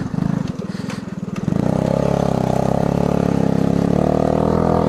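The single-cylinder four-stroke engine of a 1979 Honda ATC 110 three-wheeler running at low revs with an even pulsing beat. About a second and a half in it revs up and holds steady at higher revs.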